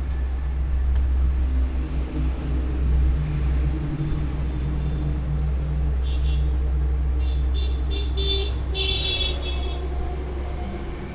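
A motor vehicle running with a steady low rumble. In the second half come several short, high-pitched horn-like squeals.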